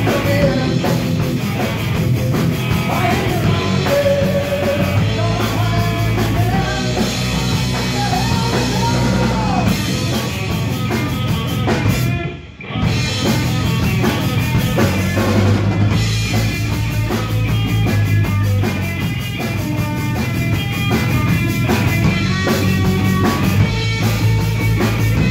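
A rock band playing: electric guitar, bass guitar and drum kit. The music drops out for a moment about halfway through, then the band comes back in.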